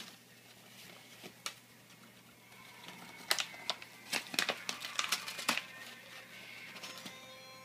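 A Siamese cat tearing and crinkling a sheet of paper with its teeth and paws: scattered sharp rips, sparse for the first couple of seconds, then coming quickly from about three seconds in.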